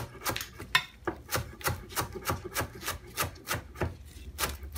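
Kitchen knife chopping green onions on a cutting board, with quick even strokes at about five a second.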